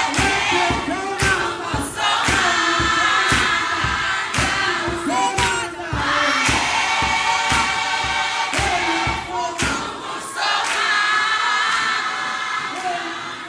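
A vocal group singing together in harmony over a steady thumping beat. The beat drops out about ten seconds in, and the singing fades near the end.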